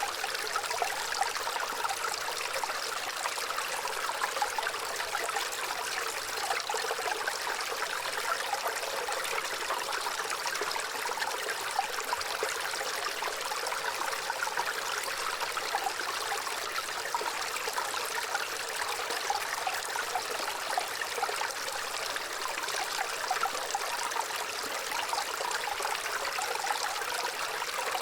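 Gently running water, a steady stream trickling and babbling without a break.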